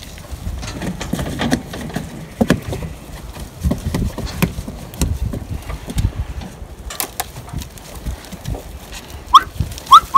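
Sheep being handled in a wet holding pen: irregular knocks, clatters and shuffling, with two short rising squeaks near the end.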